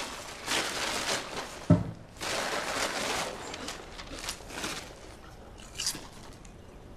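A brown paper lunch bag rustles and a bag of potato chips crinkles as a lunch is unpacked and handled. There is a single sharp knock about two seconds in, and the sound thins out after about five seconds.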